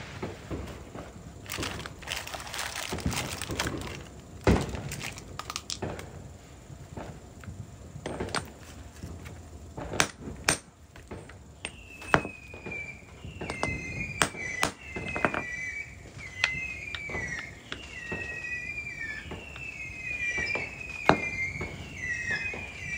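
Sharp clicks and knocks. From about halfway, a high-pitched squeak repeats about once a second, each one dropping slightly in pitch.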